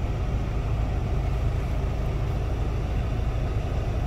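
Steady low rumble of a pickup truck driving on a dirt track, heard inside the cab: engine and tyre noise from the rough road surface.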